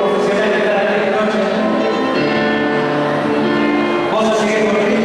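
Live tropical dance band playing through the PA, with men singing into microphones over keyboard and electric guitar.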